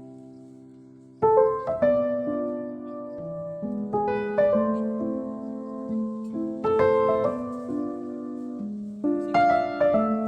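Piano background music: a held chord fades away, then about a second in a gentle melody of single struck notes begins over a steady lower line.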